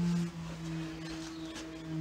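A steady low hum with a fainter tone an octave above it.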